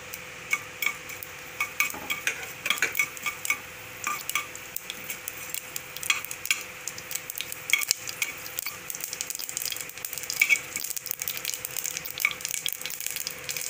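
Mustard seeds spluttering in hot oil in a small pressure cooker during tempering, as sharp scattered pops over a faint sizzle, with a spatula stirring and scraping the pan base. The pops come thicker and faster in the second half.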